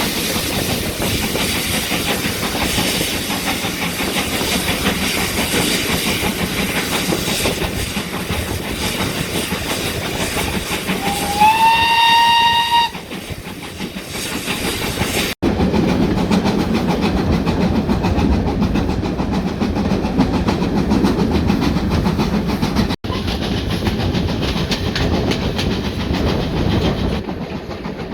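Steam train running, with a steady rumble and hiss. About 11 seconds in, one steam whistle blast rises in pitch and then holds for about a second and a half.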